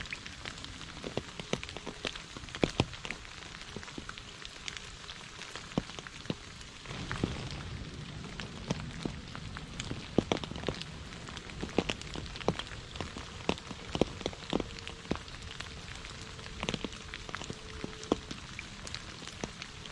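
Rain falling on puddles and wet leaves: a steady patter with many separate close drops landing as sharp splats. The rain noise grows louder for a few seconds about seven seconds in.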